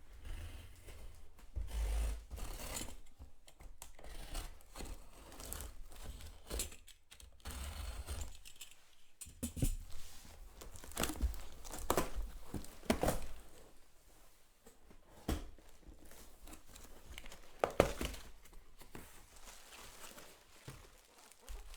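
A package being opened by hand: tearing and crinkling of the wrapping, mixed with scattered knocks, clicks and scrapes as the contents are handled.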